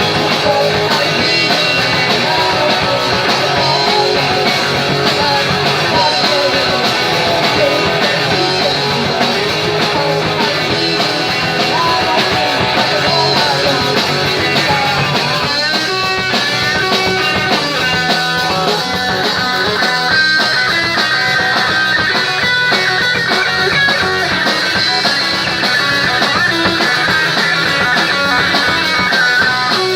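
Punk rock band playing live, guitars to the fore, loud and without a break; the guitar part changes about halfway through.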